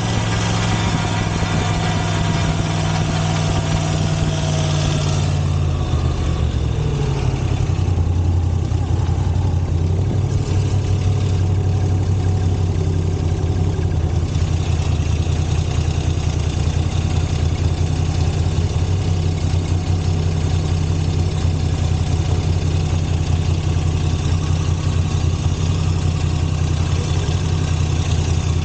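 Moto Guzzi V85 TT's air-cooled V-twin running, its revs falling to a steady idle about six seconds in. A half-loose exhaust manifold cover, with one of its screws backing out, vibrates against the engine and makes a rattle.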